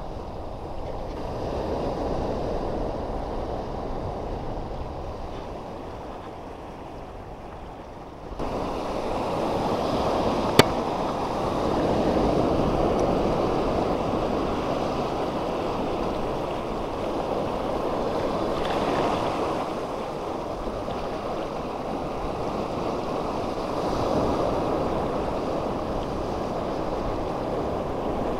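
Sea waves washing over a shallow rock reef, a steady rush that suddenly gets louder about eight seconds in. A single sharp click comes a couple of seconds later.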